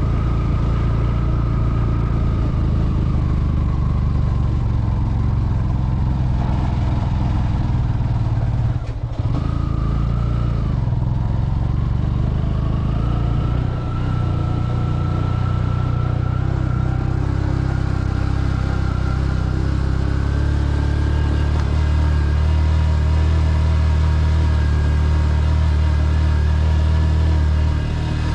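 Motorcycle engine pulling two riders up a very steep hill road, running steadily under load. Its note shifts in pitch, with a brief drop about nine seconds in.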